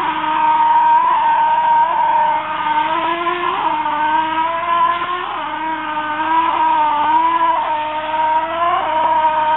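Motor of a stucco-spraying rig running steadily under load, a machine whine that wavers slightly in pitch, with the hiss of the spray.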